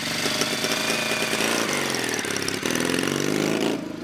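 1957 Velocette Valiant's boxer-twin engine running and revving as the motorcycle pulls away. The engine note rises and falls twice, then drops off near the end as the bike moves off.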